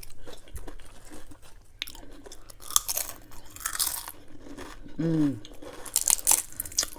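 Close-miked chewing and crunching of snack food, with crisp crackles coming in clusters. About five seconds in there is a short falling vocal 'mm'.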